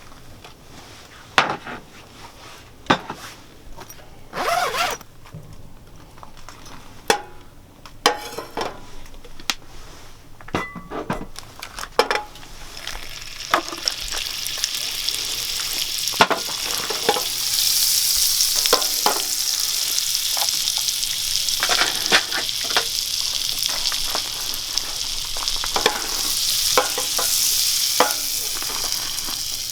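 Cooking utensil knocking and scraping against a pan, then food sizzling in the pan, the sizzle swelling from about halfway and running on under more stirring clicks.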